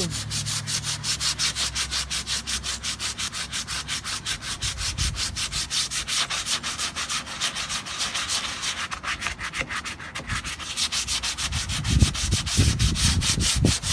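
Sandpaper being worked over dried Bondo body filler: a rapid, even, rhythmic scratching of about six or seven strokes a second. A few dull low thuds come near the end.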